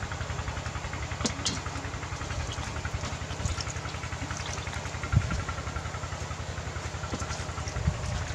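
A small engine idling steadily off-screen, with a fast, even low pulse. A few light clicks come about a second in, and a sharper thump about five seconds in, with another softer one near the end.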